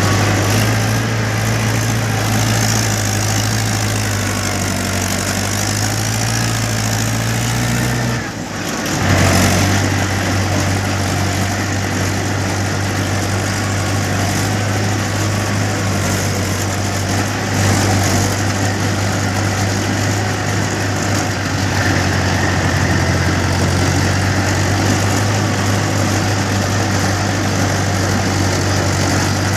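Heavy diesel engine running steadily with a constant low hum, breaking off briefly about a third of the way through and then carrying on the same.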